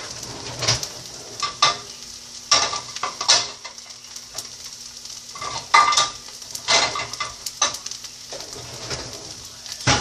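Food sizzling in a frying pan, with a utensil stirring and scraping against the pan in strokes about once a second.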